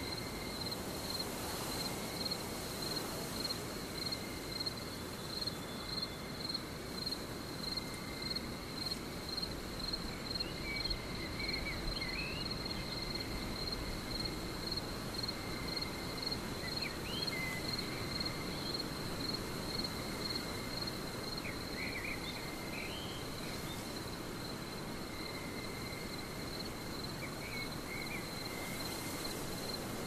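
Forest ambience: crickets trilling steadily in a fast-pulsing high tone over a constant background hiss, with a few short chirps scattered through the middle.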